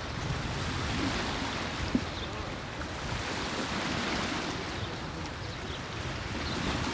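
Outdoor wind and water ambience: wind buffeting the microphone over a steady rush, with small waves washing on the shore.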